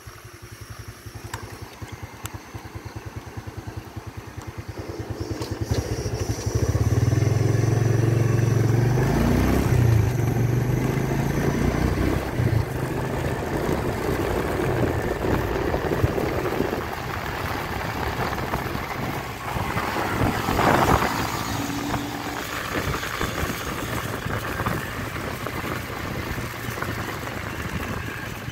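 Honda motorcycle engine running under way as it is ridden, its note building up over the first several seconds and then running steadily, with road and wind rush over it and a brief louder rush about two-thirds of the way through.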